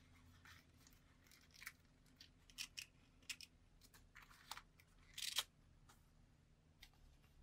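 Thin interleaving paper of a gold leaf book being leafed through and handled by gloved hands: a string of faint, short paper rustles and crinkles, the loudest a little past five seconds in.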